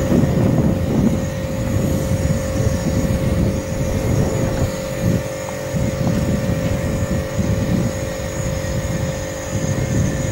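Wind buffeting the microphone: a gusting low rumble that rises and falls irregularly, under a faint steady hum.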